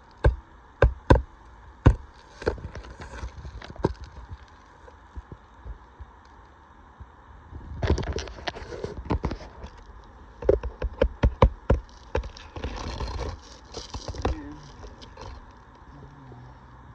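Hammer driving roofing nails into asphalt shingles: a few sharp strikes in the first two seconds, then two quick runs of taps about eight and ten seconds in, with stretches of scraping between.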